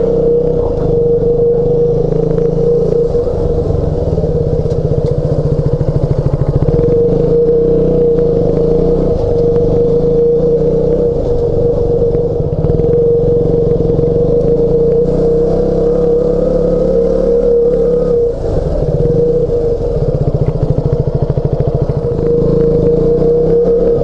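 KTM 200 Duke's single-cylinder four-stroke engine running steadily as the motorcycle is ridden along, heard from a helmet-mounted camera. The engine note dips briefly about eighteen seconds in, then picks up again.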